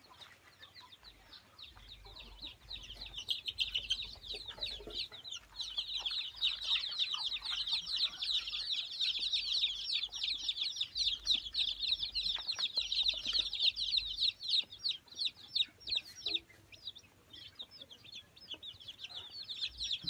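A brood of baby chicks peeping, many high, quick calls overlapping in a steady chorus. It swells about three seconds in, thins out near the end and picks up again.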